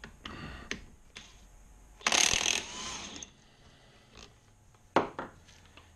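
Cordless DeWalt impact wrench hammering on the KLR 650's alternator rotor retaining bolt, undoing it. A short buzz comes first, then about a second of loud hammering. A single knock follows near the end.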